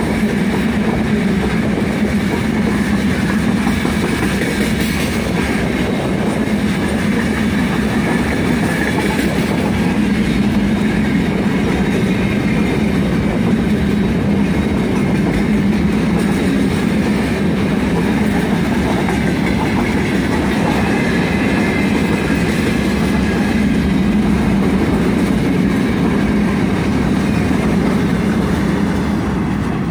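Freight train of open gondola wagons rolling past on steel wheels: steady, loud wheel-on-rail noise that eases a little near the end as the tail of the train goes by.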